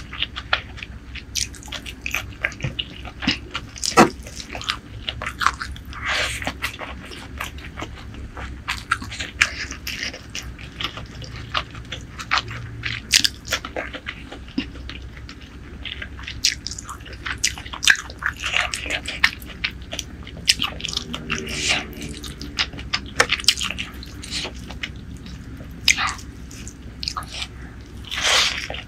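Close-miked mouth sounds of eating spicy chicken heart curry and rice by hand: wet chewing, lip smacks and frequent sharp clicks.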